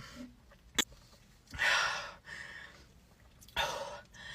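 A woman breathing out heavily twice, two short breathy exhales that fade away, with a small click just before the first.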